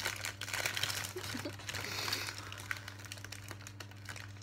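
Crinkling of the marshmallow packet's wrapper as a marshmallow is taken out, busiest in the first two seconds and then thinning out, over a faint steady low hum.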